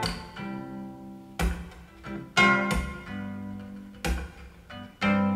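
Instrumental passage of an indie-folk song: acoustic guitar chords struck about once a second and left to ring over a sustained low note, played back through a JBL 4305P active bookshelf monitor.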